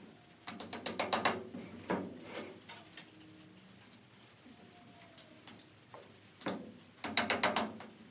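Hand ratchet wrench clicking in quick runs while a wheel is fastened onto a wagon axle. There is a burst about a second in and another near the end, with a couple of single knocks between.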